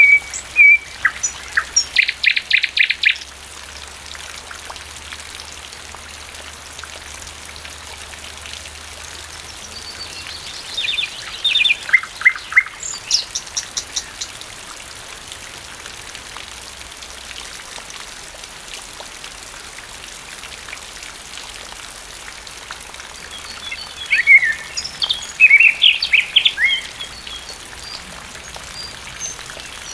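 Steady rain with a thrush nightingale singing short phrases of rapid repeated notes and whistles near the start and again about a third of the way in. Another burst of birdsong comes near the end.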